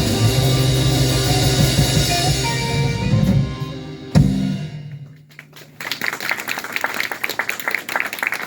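A jazz-funk band (drums, bass and keys) plays the closing bars and stops on a final hit about four seconds in, its sound dying away. After a brief hush, audience applause starts up.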